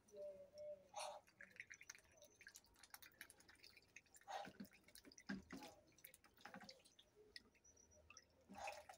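Muscovy duck dabbling its bill in a dish of water and chopped collard greens as it eats: a run of faint wet clicks, drips and slurps, with a few louder splashes.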